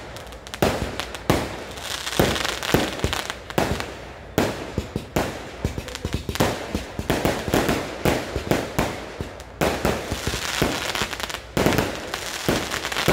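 Kerala temple fireworks (vedikkettu) going off in a rapid, irregular volley of loud bangs, several a second, with stretches of dense crackling between them.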